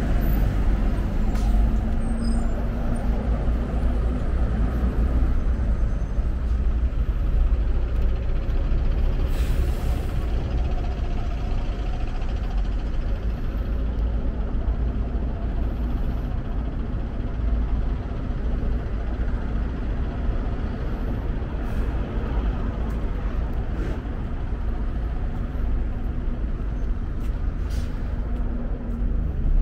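City road traffic: engines of buses, trucks and cars running with a steady low rumble, and a short hiss of air about ten seconds in.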